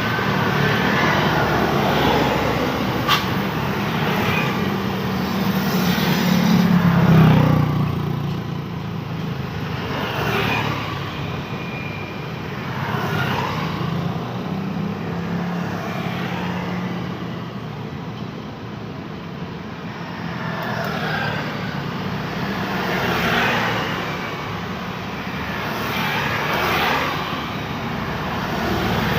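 Continuous road traffic, with cars and motorbikes passing one after another every few seconds. The loudest is a low engine passing about seven seconds in.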